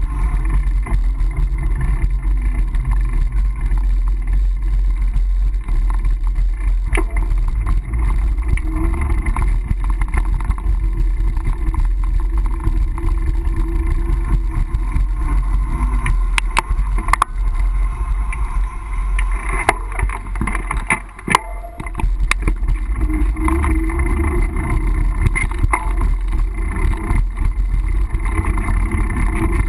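Wind buffeting the microphone of a GoPro on a moving mountain bike, a steady low rumble with hiss, and the bike's own riding noise. Several sharp clicks and knocks come a little past the middle, and the rumble briefly drops away about two-thirds of the way through.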